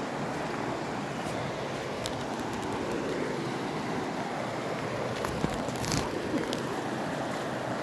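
Fast river water rushing steadily over rocks and rapids, with a few sharp knocks and clicks past the middle.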